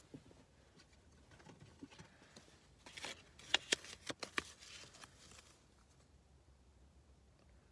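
Paper scratch-off lottery tickets being handled and scratched, faint light scraping with a quick run of sharp clicks and scrapes about three to four and a half seconds in.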